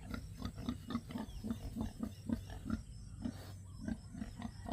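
A pig grunting in a steady run of short, low grunts, about three or four a second.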